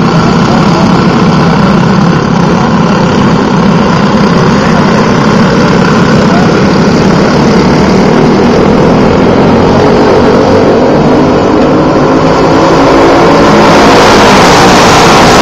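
A pack of dirt-track racing kart engines running together around the oval in a steady drone. Near the end the pack grows louder, with rising engine pitch as the karts accelerate closer.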